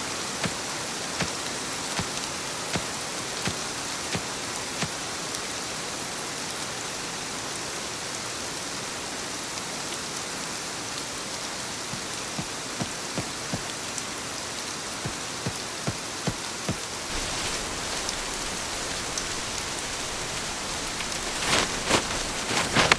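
Steady rain falling, with sharp single drops striking close by, at first about once a second and later more scattered, and a few louder knocks near the end.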